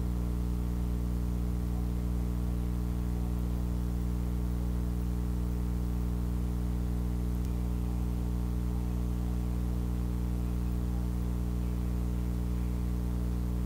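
Steady electrical hum with a stack of buzzing overtones and a faint hiss underneath, unchanging throughout.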